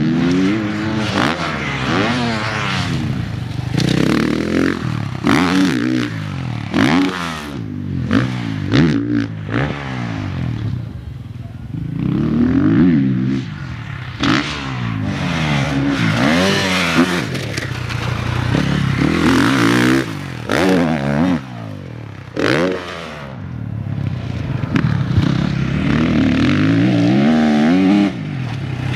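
Gas Gas factory four-stroke single-cylinder motocross bike being ridden hard around a dirt track, its engine revving up and falling away again and again as the rider accelerates, jumps and backs off for corners. Scattered sharp knocks about six to nine seconds in.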